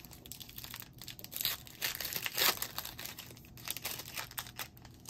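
Wrapper of a basketball trading-card pack being torn open and crinkled by hand: a run of crackly rustles, loudest about two and a half seconds in, thinning out near the end.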